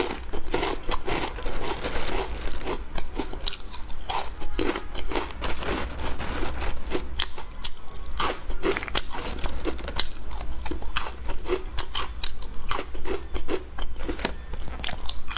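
Close-miked crunching and chewing of crispy fried ridged tube-shaped flour snacks, with many sharp, irregular crunches as each mouthful is bitten and chewed.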